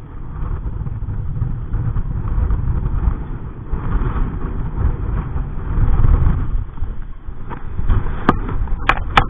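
Wind buffeting the microphone: a loud low rumble that rises and falls in gusts. Three or four sharp clicks come in the last second and a half.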